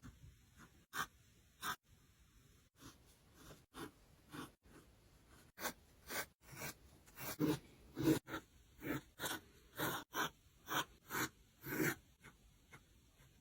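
Pencil strokes on paper: a run of short, separate scratchy swishes, about one to two a second, growing louder and quicker after the middle.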